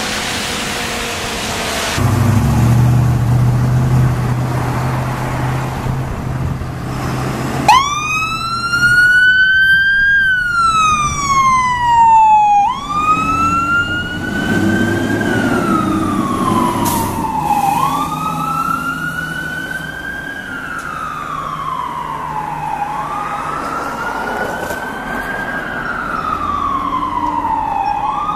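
A fire truck's diesel engine rumbling as it pulls away, then about eight seconds in its siren starts up and wails, rising and falling about every five seconds. Before that, tyres hiss briefly on a wet road.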